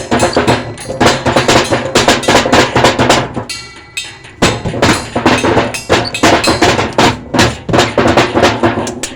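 Drums played fast and hard in dense rolls and hits; the drumming dies away a little after three seconds in and comes back in sharply about a second later.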